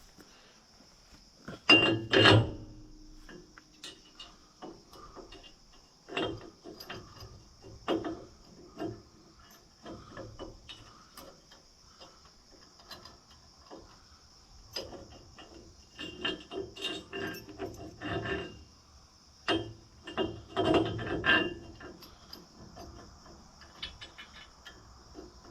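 Hand tools working on the post hole digger's metal hardware: scattered clanks and knocks, a loud double clank about two seconds in, and later runs of rapid clicking.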